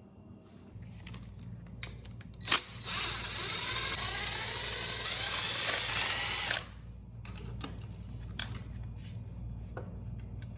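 Hand-held power drill-driver running for about four seconds, its pitch rising as it drives a fastener, then stopping abruptly, while the generator is being taken apart. A sharp click comes just before it, and light clicks and handling noises follow over a steady low hum.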